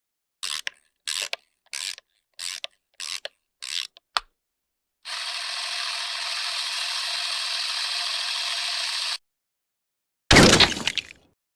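Camera mechanism sounds: a run of short ratcheting wind-up clicks about two thirds of a second apart ending in a sharp click, then a steady whir of about four seconds that stops abruptly, then a loud shutter snap near the end.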